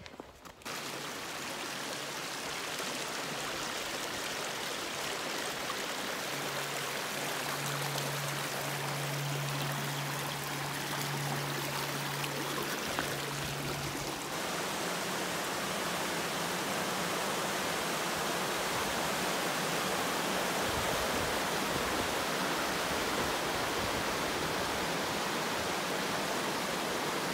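Steady rush of river water tumbling through shallow rapids and over rock ledges. A low steady hum sits under it for several seconds in the first half.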